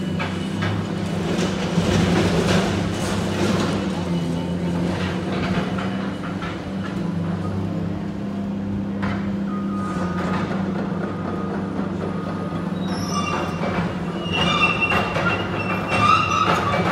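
Excavator's diesel engine running while its attachment crunches and tears the aluminium skin of a jet's fuselage, with high metal screeching in the last few seconds.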